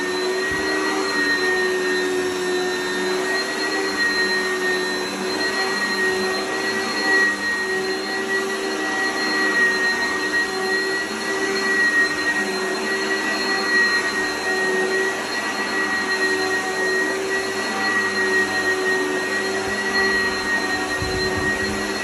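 Oreck XL upright vacuum cleaner running steadily with a high whine as it is pushed back and forth over carpet, with a crunchy sound from the carpet.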